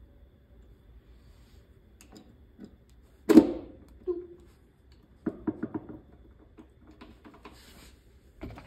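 Steel parts of a Honda B-series manual transmission clinking and clanking as the shift forks are seated on the gear stack by hand: one sharp ringing clank about a third of the way in, a smaller knock just after, then a quick run of light clicks a couple of seconds later.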